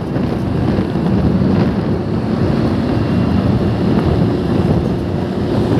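Wind buffeting the microphone over the steady rumble of road traffic while moving along a busy highway.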